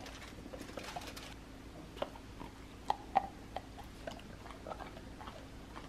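Golden retriever puppy chewing a dog treat: faint, irregular crunches and clicks, a few sharper ones between about two and three and a half seconds in.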